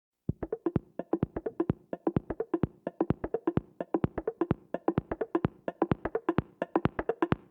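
Music: a fast, even rhythm of short, dry percussive clicks, several a second, over a faint pitched tone.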